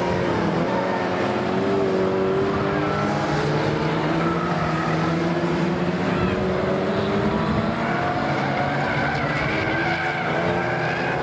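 A pack of Lightning Rods oval-racing saloon cars running hard around the track. Several engines are heard at once at different pitches, each rising and falling as the cars accelerate and lift through the bends.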